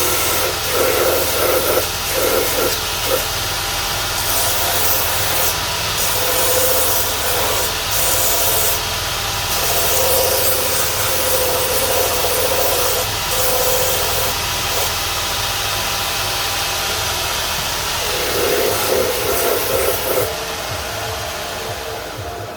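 Shoe repair grinding machine running steadily as the bottom of a leather shoe is ground down. A rasping grinding noise swells and fades each time the shoe is pressed to the wheel, over the machine's constant hum. The sound fades near the end.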